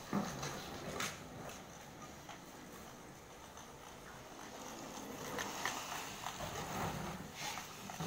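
Empty plastic bottles tied behind a mobility scooter knocking and clattering as it drives in tight circles on concrete, with a few sharper knocks among them.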